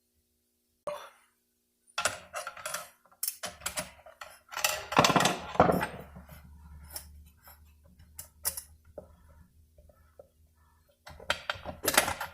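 Metal transmission parts clinking and clanking irregularly as the 46RE's rear reverse drum is worked back and forth to seat it in the case. The parts are new and tight-fitting. The clinks begin about a second in, with a low rumble under the clanks midway.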